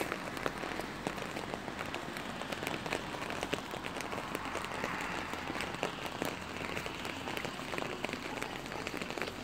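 Steady rain falling, a constant hiss with many separate drops ticking sharply on hard surfaces close by.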